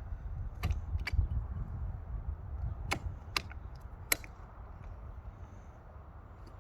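A few sharp clicks and knocks, about five in four seconds, from a roof crossbar's foot being set onto the car's roof rail, over a low rumble that fades away.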